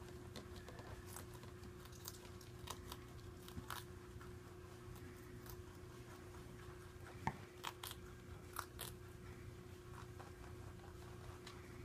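Holland lop rabbit chewing leafy greens: quick, crisp crunching bites at irregular intervals, the sharpest about seven seconds in, over a steady low hum.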